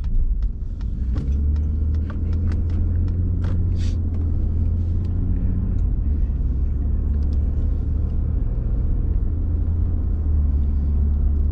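Steady low rumble of a car's engine and tyres heard inside the cabin while driving, growing louder about a second in, with a scatter of light clicks over the first few seconds.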